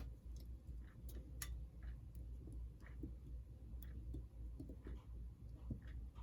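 Faint, irregular small clicks and ticks of wires and small parts being handled while the model locomotive's wiring is twisted together, over a steady low hum.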